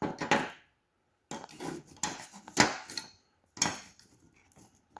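Small metal parts clinking and rattling as they are handled, likely door-handle wire frames being fitted into their jigs, in several short bursts of clatter with quiet gaps between.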